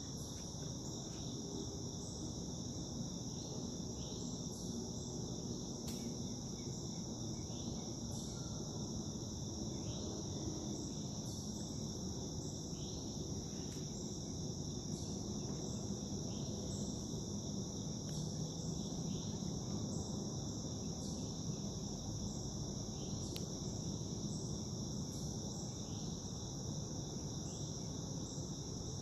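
Steady, high-pitched chorus of insects that runs on without a break, over a low background rumble.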